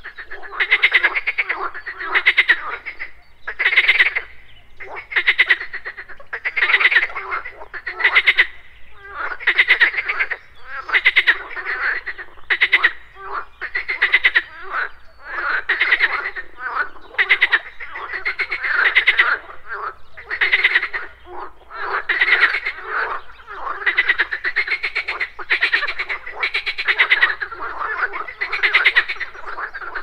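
Many frogs croaking together in a dense chorus of overlapping pulsed calls, swelling and easing in bursts roughly a second apart.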